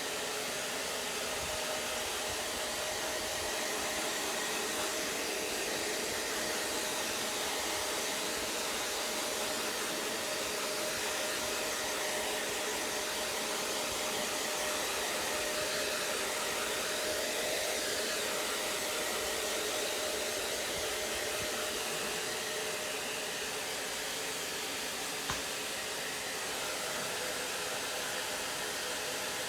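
Electric hair dryer running steadily: a constant blowing noise with a faint steady hum, and a single small click about 25 seconds in.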